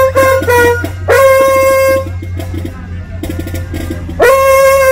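Marching-band brass jam, led by a mellophone. It plays short punchy notes, then long loud held high notes about a second in and again near the end, with a quieter stretch of quick repeated lower notes in between.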